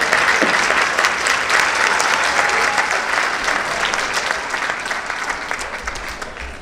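Audience applauding in a theatre, a dense patter of many hands, loudest at the start and slowly dying away.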